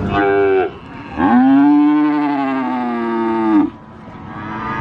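Cattle mooing: a short moo, then one long, low moo lasting about two and a half seconds, with another moo starting near the end.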